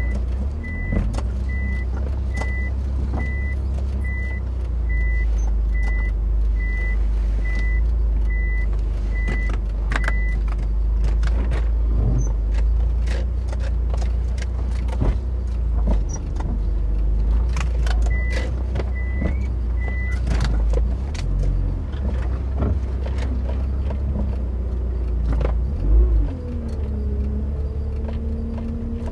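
Inside a Mitsubishi Lancer Evolution driven slowly over a rough road: a steady low engine and road rumble, with frequent clicks and knocks from bumps and loose stones. An electronic warning beep repeats about every two-thirds of a second for the first third and again briefly in the middle, and there is a heavier thump near the end.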